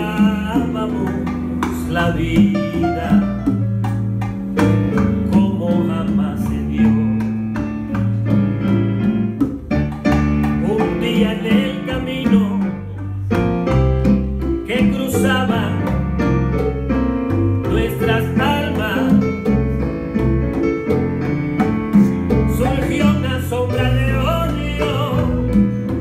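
Live bolero played on electric keyboard and guitar, a melodic instrumental passage over a steady bass line.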